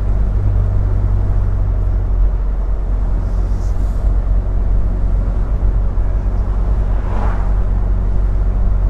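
Triumph Herald 13/60's 1300 cc four-cylinder engine running steadily at moderate road speed, with road and wind noise in the open car.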